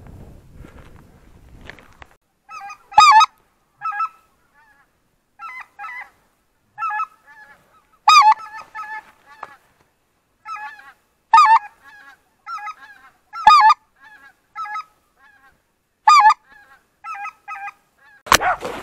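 Geese honking: a series of short, clear honks, a few of them much louder than the rest, with silence between. A sharp knock and rustling come near the end.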